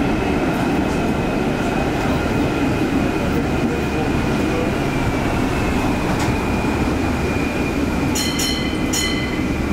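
1960 PCC tram running along the rails: a steady rumble with a high whine that dips slightly in pitch midway, and two short high-pitched sounds near the end.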